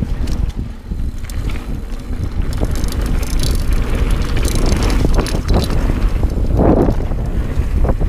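Dartmoor Primal 29er hardtail mountain bike riding fast down a dirt and gravel trail: steady wind rumble on the GoPro's microphone over tyre noise and scattered clicks and rattles from the bike over bumps, with one louder swell about two-thirds of the way in.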